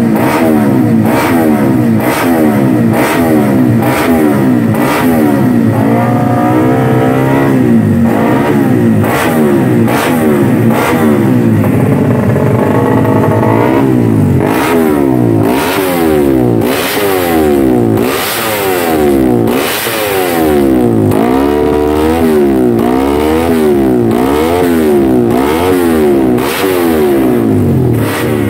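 Race-tuned Yamaha MX King single-cylinder four-stroke engine revved with a racing exhaust, the motorcycle on its paddock stand. It is held at high revs at first, then blipped up and down about once a second through the second half.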